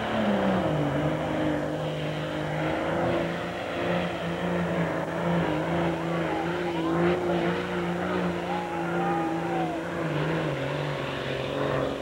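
Super farm class pulling tractor's diesel engine running wide open under load as it drags the weight-transfer sled. The steady engine note sags in pitch about half a second in and again near the end as the sled bears down.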